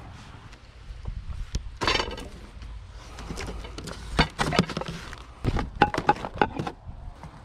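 Wicker picnic basket being handled: its lid is lifted and a plate and a bag of tortillas are taken out, making a quick run of creaks, knocks and clinks against the wooden table.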